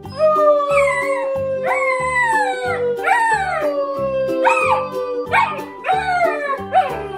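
Alaskan malamute puppy howling: a string of short howls that rise and then fall in pitch, about eight in all, over a longer steady howl that slowly falls in pitch. Background music with a steady beat plays under it.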